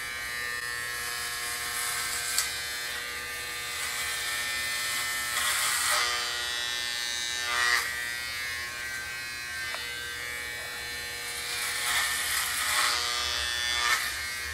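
Electric hair clippers running with a steady buzz, the sound swelling several times as the blades cut through long hair at the back of the head.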